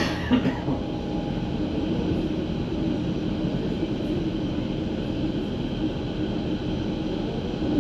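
Berlin S-Bahn class 481 electric train running, heard from on board: a steady rumble of wheels on track with a faint hum, and two short knocks right at the start.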